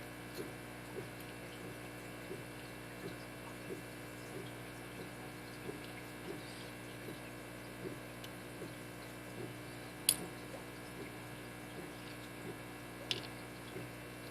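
Small sharp clicks from a Schlage SC1 deadbolt cylinder being taken apart, as driver pins and springs come out of its upper chambers: one loud click about ten seconds in and a smaller one about three seconds later. Under them run a steady hum and faint soft ticks about every two-thirds of a second.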